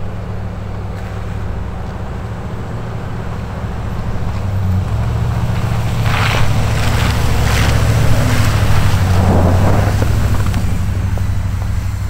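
Pickup truck with a front snow plow pushing heavy wet snow: its engine hums steadily and grows louder partway through as the truck comes nearer. In the second half, several rushing, scraping swells come from the blade moving through the snow.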